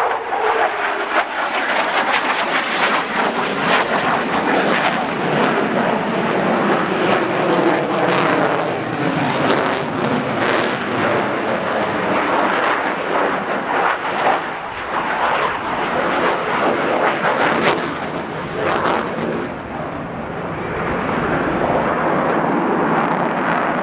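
Jet noise from an F-15 Eagle's two Pratt & Whitney F100 turbofans as the fighter flies overhead: a loud, steady rush, with a tone that falls in pitch over the first couple of seconds.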